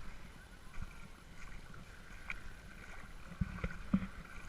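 Faint lakeside outdoor ambience, with a few soft low thumps about three and a half to four seconds in.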